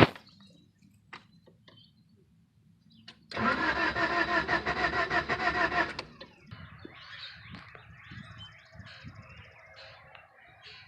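A sharp click, then the 1999 Honda Prelude's starter cranking the four-cylinder engine for about two and a half seconds in a fast, even rhythm. The engine does not catch: a crank-no-start.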